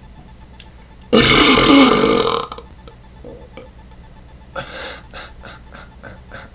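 A man's loud, long burp of about a second and a half, its pitch falling partway through. A few seconds later comes a much shorter, softer breathy sound, followed by faint clicks.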